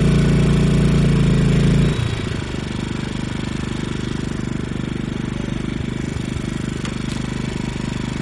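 Two portable inverter generators, a Generac iQ2000 and a Honda EU2000i, running. About two seconds in, the loud hum drops abruptly to a quieter steady running note as the space-heater load is switched off and the engines come off load.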